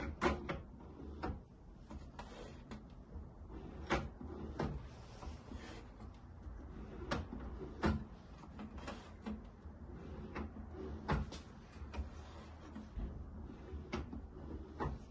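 Irregular clicks, knocks and clunks of hard parts being handled, about a dozen spread unevenly, over a low steady hum.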